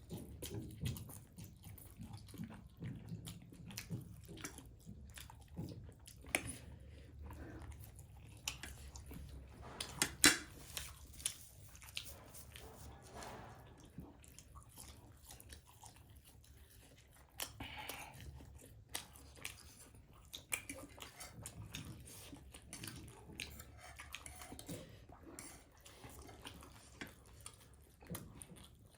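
People chewing and eating spicy instant noodles: soft wet mouth sounds with scattered sharp clicks, one louder click about ten seconds in.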